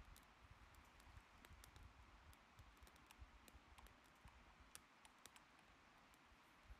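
Near silence with faint, irregular crackling from a small wood fire burning in a folding Firebox stove.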